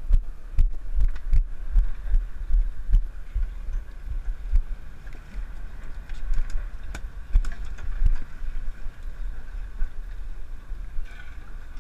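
Low rumble aboard a sportfishing boat, with wind buffeting the microphone. Scattered knocks and thumps from handling gear on the deck, several in the first couple of seconds and more around seven and eight seconds in.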